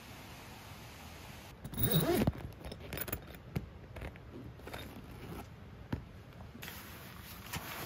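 Tent zipper being worked by hand: a loud rasping pull about two seconds in, then a run of shorter rasps.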